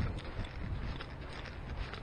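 Footsteps on a dirt and sand bush track, a string of irregular light steps, with a low wind rumble on the microphone.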